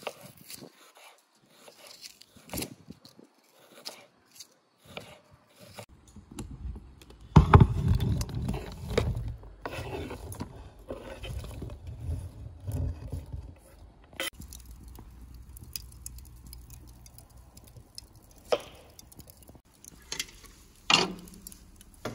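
Kitchen knife slicing onion on a wooden cutting board, a scatter of sharp cuts and taps. About seven seconds in, a louder stretch of scraping as the sliced onion is pushed off the board into a pan, followed later by a few separate knocks.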